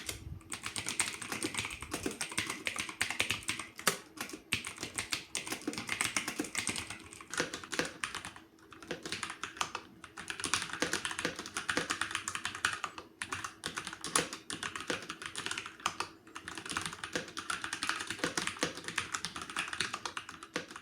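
Fast, continuous typing on a Noga Ganon mechanical keyboard with Brown switches: a dense stream of fairly soft key clicks, broken by a few brief pauses.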